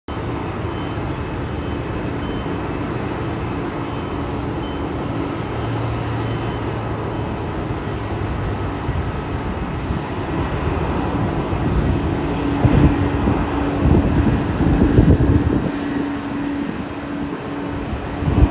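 Boeing 767 airliner on approach for landing: a steady rush of jet engine and airflow noise with a constant hum. From about two-thirds of the way through, irregular low thumps and rumbles come through.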